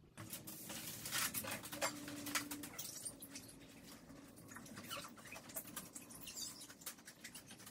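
Paper towel wiping across a pane of window glass: many short, faint rubbing strokes.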